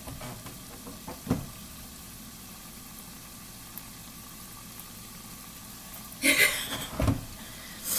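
Food sizzling steadily in a pan on the stove. There is a knock about a second in, and a brief loud rustle and a thump near the end.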